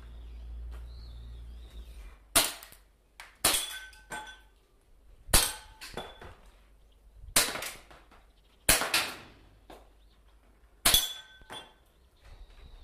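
Marushin Nambu Type 14 gas-blowback airsoft pistol fired six times, roughly one to two seconds apart. Each shot is a sharp crack, and several are followed by a short metallic clink.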